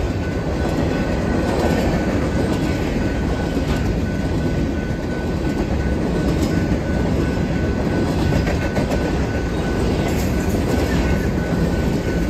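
Steel covered hopper cars of a BNSF freight train rolling past close by: a steady rumble of wheels on rail, with scattered clicks and clanks as the wheels cross the rail joints.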